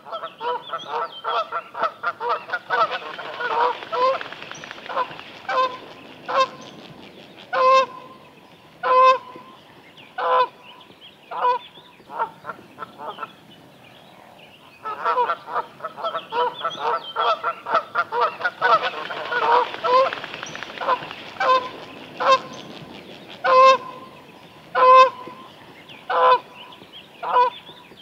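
A bird calling: a fast run of short pitched notes that slows into louder, spaced single calls. The whole bout happens twice, with a brief pause about halfway.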